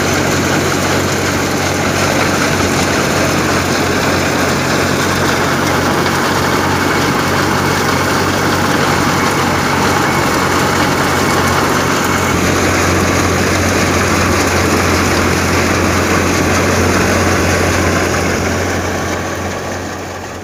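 Fiat 480 tractor's three-cylinder diesel running steadily under load, driving a belt-and-pulley wheat thresher by its PTO shaft, with the thresher running flat out as grain and straw pass through. The load is heavy because the wheat is damp. The sound fades out near the end.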